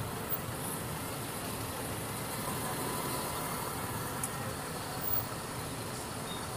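Steady engine and road noise of an ordinary non-air-conditioned bus moving slowly through town traffic, heard from inside the passenger cabin.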